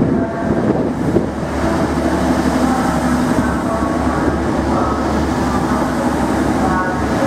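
TransPennine Express Class 185 diesel multiple unit passing close by along the platform, its underfloor diesel engines running under power with a steady low drone and several held tones above it.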